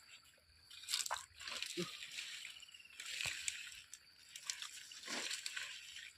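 Shallow water sloshing and splashing in irregular bursts, with a few sharper splashes, as the water is worked by hand while catching crabs and mud eels.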